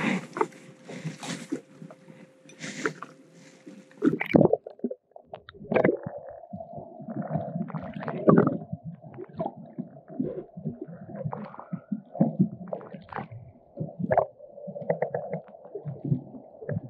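Seawater sloshing against a jet ski in open air. About four seconds in it changes abruptly to the muffled sound of a camera microphone held underwater: irregular gurgles and knocks of water against the housing and hull.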